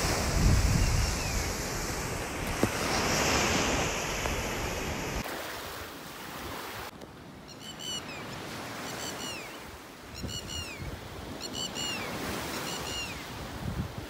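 Surf and wind buffeting the microphone, then from about halfway a red-wattled lapwing calling: short, sharp notes that fall in pitch, repeated in groups of two or three.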